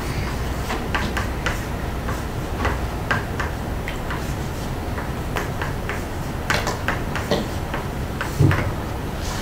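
Chalk tapping and scratching on a blackboard while equations are written: a string of short, irregular clicks over a steady low hum.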